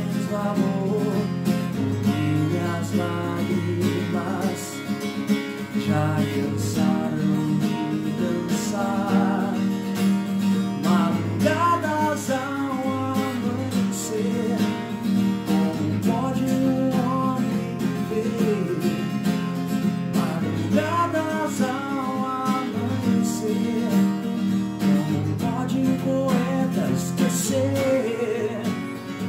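Acoustic guitar strummed and picked in a steady song accompaniment, with a man's voice carrying a melody over it in places.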